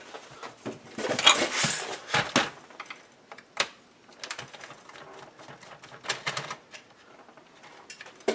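Clicking and scraping of a screwdriver working Torx screws out of a plastic dash control panel. A denser stretch of scraping comes about a second in, followed by scattered sharp clicks.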